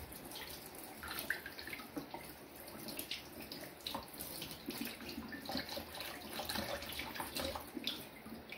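Kitchen tap running into the sink while hands rinse a fish under the stream, with uneven splashing throughout.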